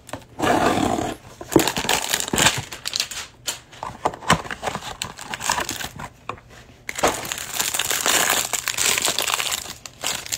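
Clear plastic wrapper crinkling and cardboard packaging being handled as a trading-card hanger box is opened and the wrapped card stack pulled out. The crackling comes in bouts with scattered clicks between, busiest in the first few seconds and again in a long stretch near the end.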